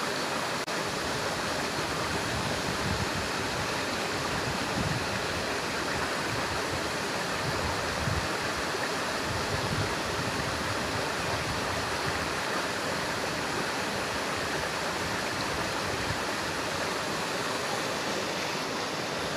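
A rocky stream flowing: a steady, even wash of running water.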